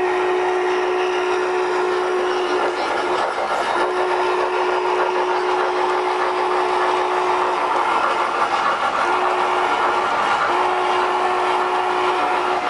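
O gauge model trains running on a layout, with the steady whir and rattle of wheels on track and a model locomotive's whistle sounding in long held blasts. There is one blast at the start, a long one of about four seconds, then a short blast and another long one near the end.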